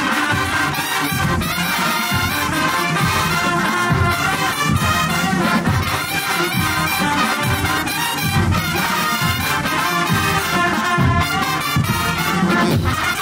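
A marching band's brass section playing loudly, with trumpets and trombones carrying the tune over a regular low beat, about one to two hits a second.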